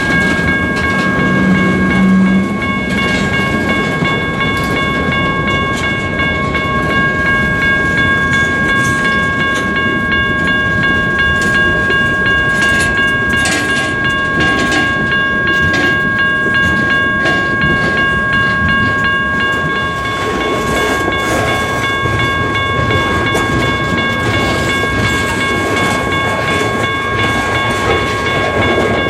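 Freight train of tank cars and covered hoppers rolling past close by: a steady rumble of wheels on rail, with clicks as wheels cross rail joints. Several steady high-pitched ringing tones sound over it; some stop about two-thirds of the way through.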